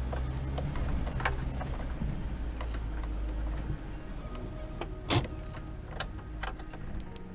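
A 1989 Mitsubishi Pajero's engine runs low and steady as it crawls over a rock shelf, heard from inside the cabin. Sharp knocks and rattles from the body come over the rough rock, the loudest about five seconds in.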